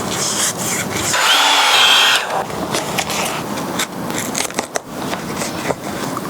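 A handheld power tool runs briefly about a second in, a noisy whir with a thin whine over it, amid scattered sharp clicks and knocks of hand work.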